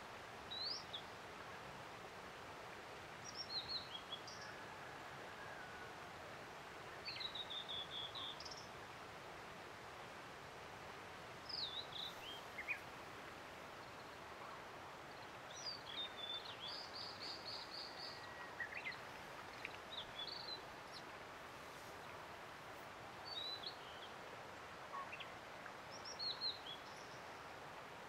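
Blue-and-white flycatcher singing: short phrases of high, falling whistled notes, about eight of them, one every three to five seconds, over a steady background rush.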